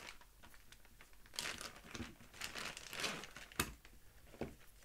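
Clear plastic zip bag crinkling in irregular bursts as the hand speaker-microphone is taken out of it, with two sharp clicks near the end.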